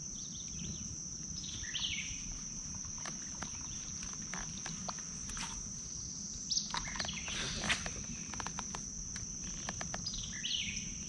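Insects keeping up a steady high-pitched drone. Birds chirp now and then over it, and there are scattered light clicks and knocks, a few louder ones about two-thirds of the way through.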